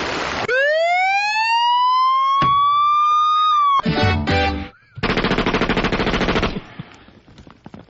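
Sound-effects collage in a comedy audio mix: a blast of noise, then a single siren-like tone that rises and holds for about three seconds and cuts off. A short choppy burst follows, then a rapid rattle like machine-gun fire for about a second and a half.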